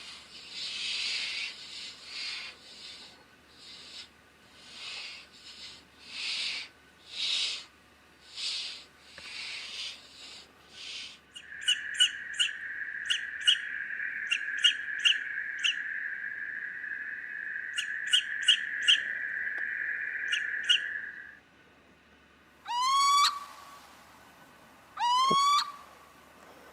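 Owl calls: a run of harsh, rasping hisses about a second apart, then a steady high whistle with sharp ticks over it, then two rising screeching calls near the end.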